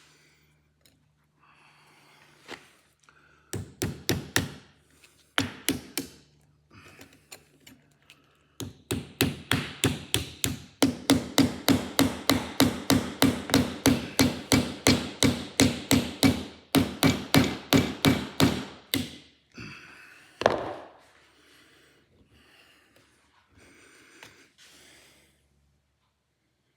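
Hammer blows tapping a tight-fitting slotted ABS reluctor ring onto a drive shaft's CV joint. A few scattered strikes come first, then a long even run of about three blows a second for some ten seconds, and one last blow near the end.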